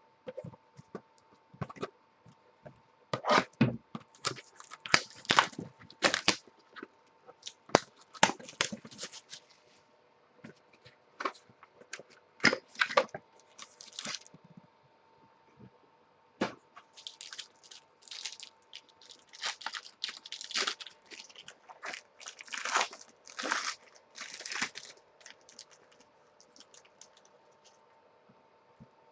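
Plastic card-pack wrappers being torn and crinkled as trading cards are unpacked and handled, in irregular crackling rustles, some loud and some faint. A faint steady hum runs underneath.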